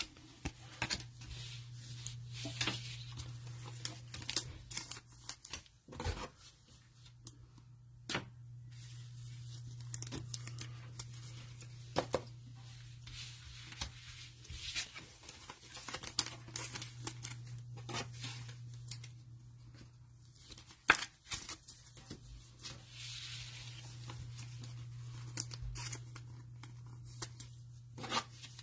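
Cellophane wrapper of a trading-card cello pack being torn open and crinkled, in a long run of crackles and clicks, over a steady low hum.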